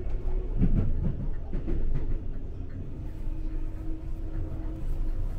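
Inside a moving Brisbane suburban electric train: steady low rumble of the carriage running on the track, with a faint steady hum joining about three seconds in.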